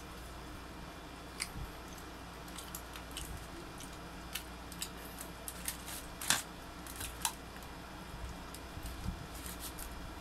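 Scattered small crackles and clicks from hands pulling a whole rotisserie chicken apart on crinkling aluminium foil, over a faint steady low hum; the loudest crackle comes a little past six seconds in.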